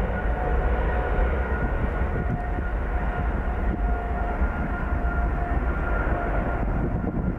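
Boeing 777 twin-engine airliner on its takeoff roll at takeoff thrust: a steady, deep jet rumble with a high whine held at an even pitch.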